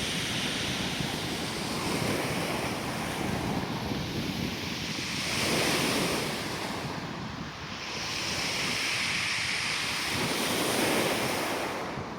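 Sea waves washing up and drawing back over a beach of round, smooth pebbles, the surf and rolling stones making a hiss that swells and eases every few seconds.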